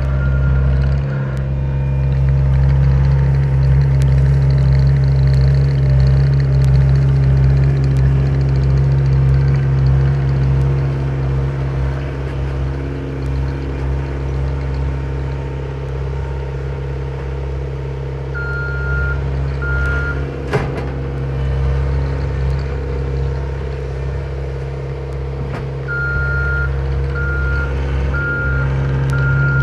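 Skid steer engine running steadily under work, with its backup alarm beeping about once a second as it reverses, briefly past the middle and again near the end. A single sharp knock about two-thirds of the way through.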